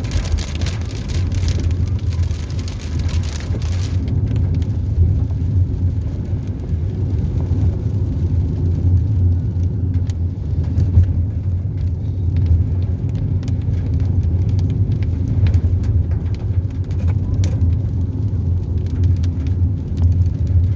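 Car driving in the rain: a steady low road and engine drone. A rain hiss is strong over the first four seconds, then gives way to scattered raindrop ticks.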